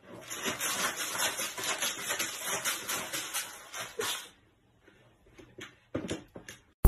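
A cat digging in pelleted litter in a plastic litter box: rapid scratching and rattling of the pellets for about four seconds, then a few scattered clicks.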